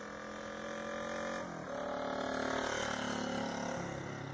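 Motorcycle engine sound effect under an animated logo: a steady running engine note that drops in pitch about a second and a half in, then settles and swells a little.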